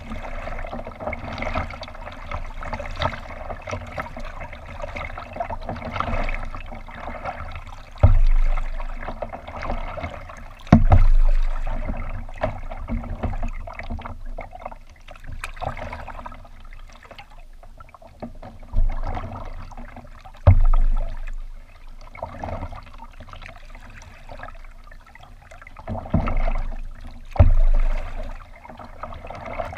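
Water lapping and splashing against a plastic kayak hull as it is paddled along. Six dull low thumps come in three pairs, the loudest sounds here.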